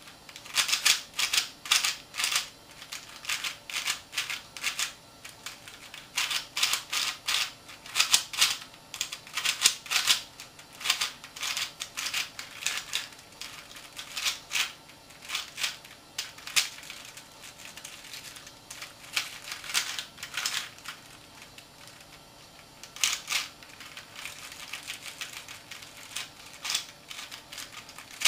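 Plastic clicking and clacking of a handmade cast 3x3x5 cuboid twisty puzzle as its layers are turned quickly by hand, in irregular runs of turns with a couple of short pauses.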